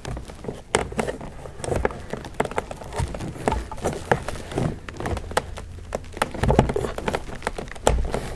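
Plastic trim-removal tool prying at a BMW F10 rear door's interior trim panel: irregular plastic clicks, taps and creaks as the panel's retaining clips are worked loose, with a few dull knocks.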